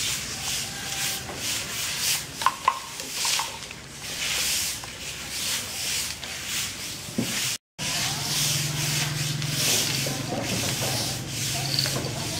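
Long-handled brooms sweeping a concrete courtyard: repeated brushing, scraping strokes, several brooms at once. A low steady hum comes in about eight seconds in.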